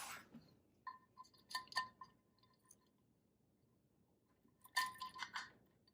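Metal engine parts clinking and tapping together with a brief ring, as the timing chain is fed through and the case is set in place. There is a cluster of clinks about a second in and another near the end.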